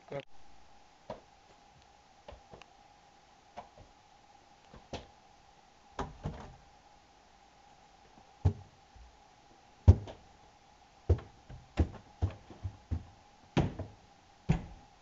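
Irregular thumps and knocks of people clambering on a staircase on hands and feet, a dozen or so, loudest about ten seconds in, over a faint steady hum.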